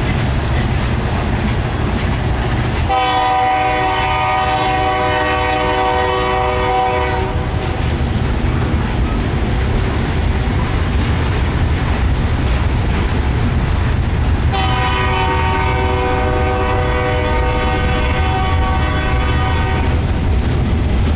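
Freight train's tank cars and gondolas rolling past with a steady rumble and wheel clatter. A diesel locomotive horn sounds two long blasts over it, the first about three seconds in lasting some four seconds, the second from about fourteen seconds in until near the end.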